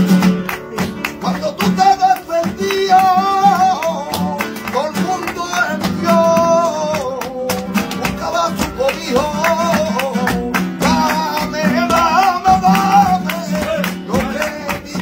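Flamenco singing (cante) with acoustic flamenco guitar accompaniment. The voice sings long, wavering, ornamented notes over the plucked guitar.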